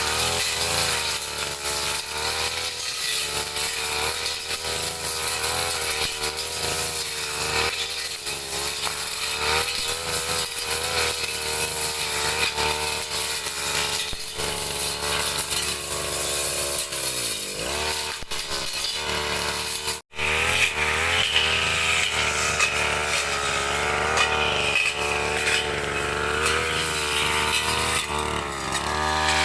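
Brush cutter engine running at high revs, its pitch wavering as the blade works through grass. About 17 seconds in, the engine sags and climbs back. Just after 20 seconds the sound drops out for an instant.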